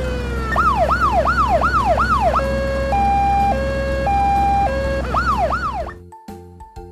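Electronic police siren cycling through its tones: the end of a falling wail, a fast yelp of rising and falling sweeps, a two-tone hi-lo, then the yelp again, cutting off about six seconds in. A steady low engine rumble runs underneath.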